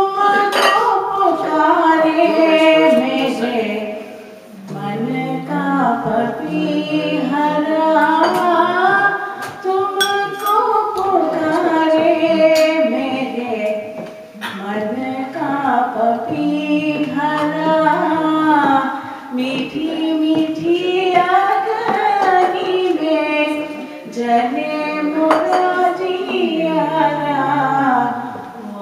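A woman singing a song solo in long, gliding melodic phrases, with short breaks for breath between them.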